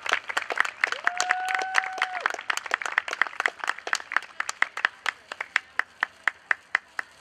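Crowd applauding, dense at first and thinning out until only a few single claps remain near the end, about two a second. About a second in, someone in the crowd holds one high note for just over a second.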